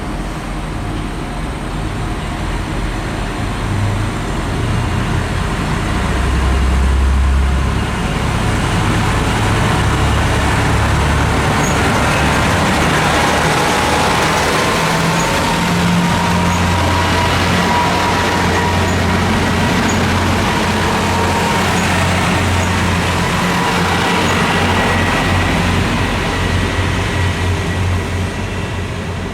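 KiHa 200 series diesel railcar running, its low engine note shifting in pitch several times, with a faint whine that rises and holds through the middle.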